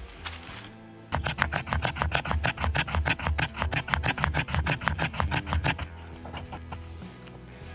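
Taxus Habilis bushcraft knife scraping in fast, even strokes, several a second, starting about a second in and stopping near six seconds.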